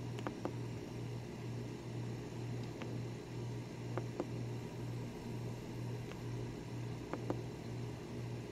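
A steady low hum pulsing evenly about twice a second, with three pairs of faint short clicks: near the start, about four seconds in, and about seven seconds in.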